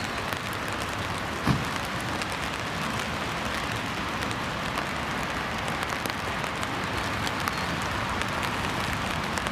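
Steady rain with many small drop ticks, and a single thump about one and a half seconds in.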